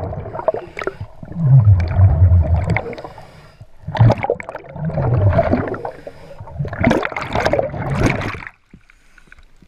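Scuba diver breathing through a regulator underwater: exhaled bubbles rumbling and gurgling past the camera in bursts about every three seconds, with hissing breaths between, stopping near the end.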